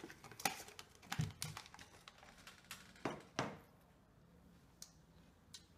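Pringles crisps being crunched in the mouth and the can's plastic lid being handled and pressed back on: a quick run of small crunches and clicks in the first couple of seconds, then two louder handling sounds just after three seconds.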